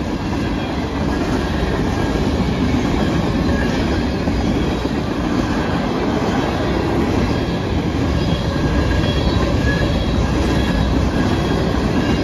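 A train passing close by: a steady rumble of wheels on the rails, with a few faint, brief wheel squeals.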